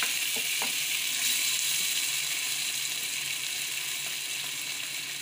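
Green chillies, garlic and ginger sizzling steadily in hot oil with soy sauce and lemon juice in the pan. A couple of light spatula clicks against the pan come in the first second.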